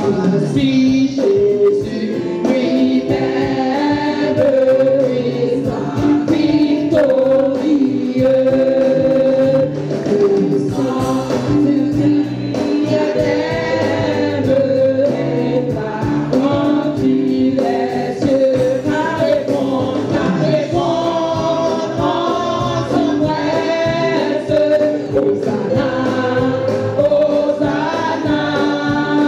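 Church choir singing gospel music, the voices together in long held notes over a steady low accompaniment.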